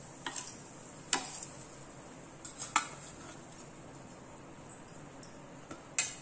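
A few separate light clinks and taps of a steel spatula and utensils against a flat dosa pan, over a faint steady hiss.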